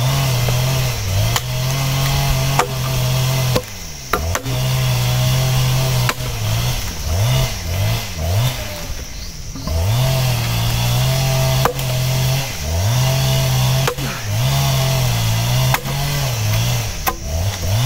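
Engine-driven firewood-splitting machine running steadily. Its pitch dips sharply and recovers again and again as it bogs under the load of the wood, with sharp cracks every second or two as the logs split.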